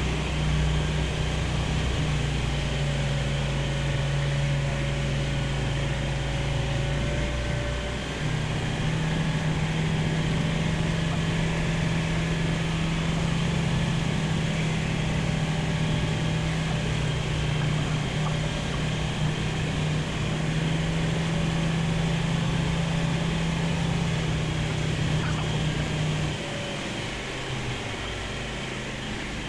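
Light aircraft's piston engine and propeller droning steadily in the cockpit, dropping a little in level near the end.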